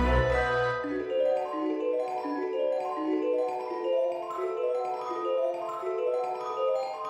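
Background music: a melody of mallet-percussion notes like a vibraphone or marimba, with a low bass note fading out about a second in.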